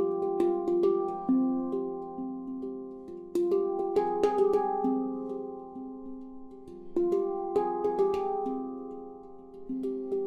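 F Pygmy handpan of Ayasa ember steel played by hand, unprocessed: groups of quick struck notes ring on with long sustain and die away, with a new group about every three and a half seconds.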